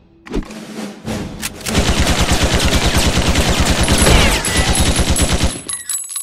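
A few separate sharp knocks, then a rapid run of sharp impacts at about ten a second, like machine-gun fire, lasting about four seconds before it stops.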